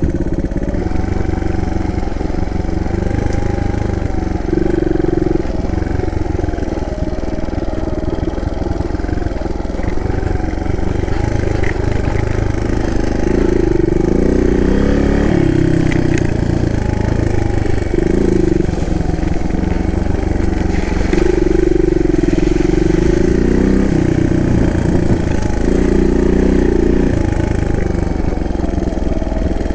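Suzuki DR200's single-cylinder four-stroke engine running under way off-road, its pitch rising and falling as the throttle is opened and closed, with several stronger surges of revs.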